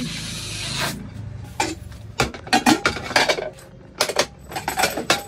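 Aluminium pots and a pressure cooker handled on a metal counter: a brief hiss for about the first second, then a run of sharp metallic clanks and clinks.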